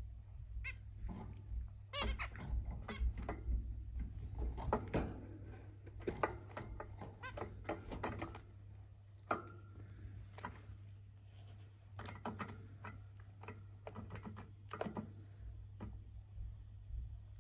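Zebra finches giving many short, sharp chirps and calls in quick runs, busiest in the first half and sparser later, over a steady low hum.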